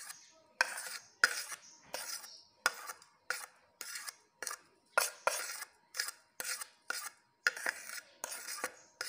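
A spoon scraping and tapping on a ceramic plate, pushing ground spice mix off it into a grinder jar: a run of quick, sharp strokes, a little under two a second.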